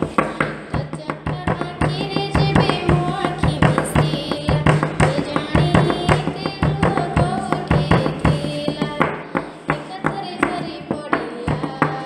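Odia devotional bhajan to Jagannath in a girl's voice, with quick percussion strokes throughout over a steady low drone note.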